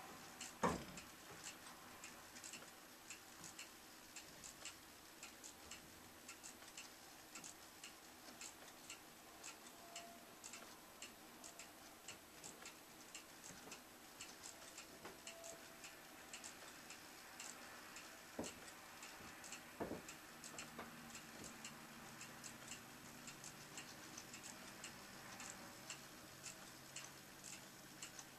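Quartz wall-clock movement driven by an ATtiny85 microcontroller, ticking faintly at uneven, random intervals while keeping accurate time overall. A louder single knock comes about a second in, and two duller knocks come about two-thirds of the way through.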